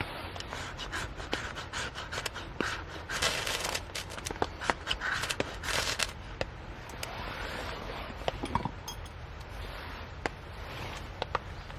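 Irregular scraping and rubbing, with scattered sharp clicks and knocks, over a steady low rumble; the scraping is densest a few seconds in.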